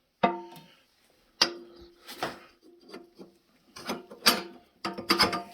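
A heavy steel pin and the steel brackets of a home-built backhoe thumb clanking together as the pin is worked through the adjustment holes: a series of sharp metal knocks, each ringing briefly, several in quick succession near the end.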